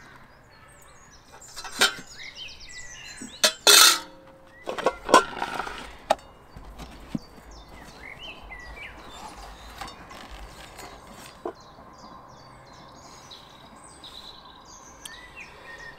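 Handling noise from a padded hard case and stainless-steel pans for an Omnia camping oven set on a stone surface: several knocks and clinks in the first six seconds, the loudest a short sharp scrape near four seconds, then quieter rustling and handling.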